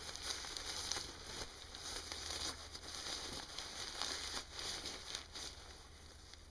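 The shell fabric of The North Face Elephant's Foot half-bag rustles and crinkles as it is pulled up around the body. It is a run of soft crinkles that fades near the end.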